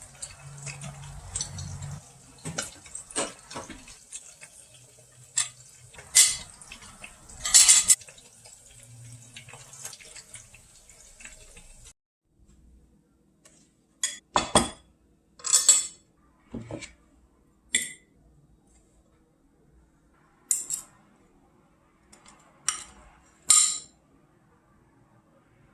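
Dishes and metal utensils clinking and clattering in a kitchen, with water running through the first half. After the water stops, about a dozen separate sharp clanks and clicks follow.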